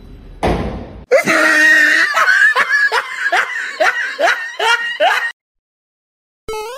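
A person laughing hard in a fast run of short rising 'ha' sounds, about three a second, after a brief noisy burst. A short rising tone sounds near the end.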